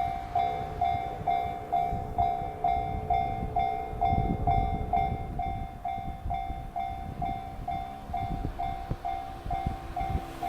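Japanese level-crossing warning bell ringing, an electronic clang repeating about twice a second, over the low rumble of a train running through the crossing.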